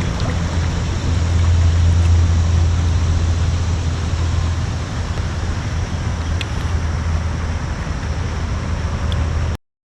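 A small motor pushing a kayak upriver runs with a steady low hum over rushing water and wind noise, then cuts off abruptly near the end.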